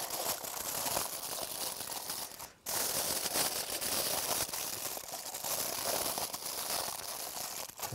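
Aluminium foil crinkling and crumpling as it is folded and pinched shut into a sealed cooking parcel, with a brief pause about two and a half seconds in.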